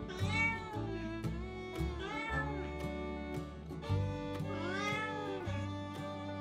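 A cat meowing three times, each call rising and falling in pitch, the last one longer, over background music with fiddle and a steady beat.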